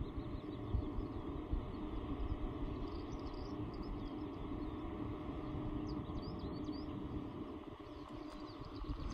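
Distant Airbus A380 jetliner on approach, a steady low jet drone, mixed with wind buffeting the microphone. Small birds chirp now and then, most near the end.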